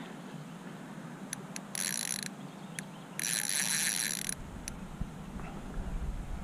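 Spinning reel being cranked in two short spells, the second about a second long, its gears whirring as line is wound in. A few light clicks fall between.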